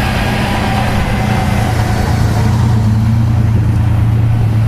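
An engine running steadily, a low hum holding one pitch, with a hiss that fades over the first two seconds.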